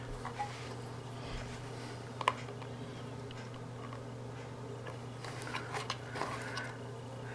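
Small plastic clicks and scrapes as a thin tool pries at the seams of a plastic TV-box case, with one sharp click about two seconds in and a few more clicks near the end. A steady low hum runs underneath.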